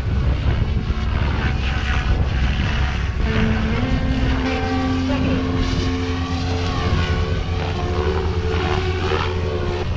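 Kraken 580 RC helicopter in flight: a steady motor and rotor whine whose pitch steps up about three seconds in.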